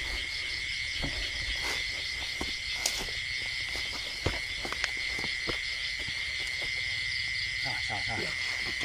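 A steady chorus of night insects such as crickets: a continuous trill with faster pulsing above it. A few sharp clicks stand out about three and four seconds in.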